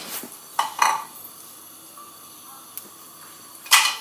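Kitchen pots and utensils clattering: a few short knocks and clinks, the loudest near the end.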